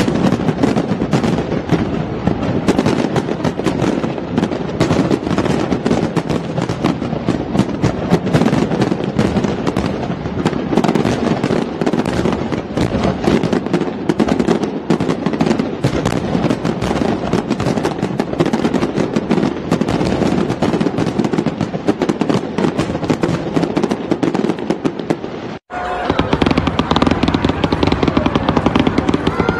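Fireworks display: a dense, continuous crackling and popping of many bursting shells. About 26 s in it cuts off abruptly and gives way to a steadier, different noise.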